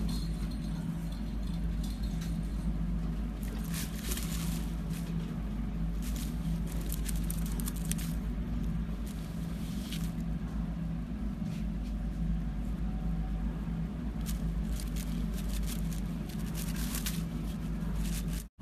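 Rabbit nibbling and rustling fresh leafy greens, with irregular short crunchy clicks, over a steady low hum.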